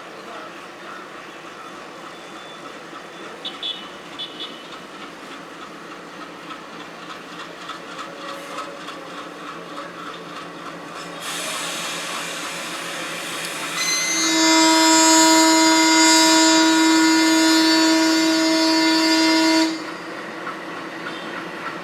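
Malfunctioning air horn on a WDM3D ALCO diesel locomotive: about three seconds of rushing air hiss, then one loud, steady, single-pitched horn blast of about five and a half seconds that cuts off suddenly. The horn is not working correctly, giving a strange, ridiculous honk. Train running noise lies beneath.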